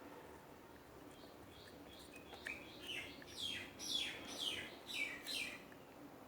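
A bird calling: a run of quick falling chirps, about two a second, growing louder and then stopping shortly before the end.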